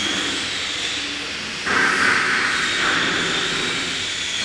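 The Changsheng spindles of a six-head CNC router running with a steady high-pitched whine while the bits engrave into a board, with cutting noise underneath. About one and a half seconds in, the sound suddenly gets louder.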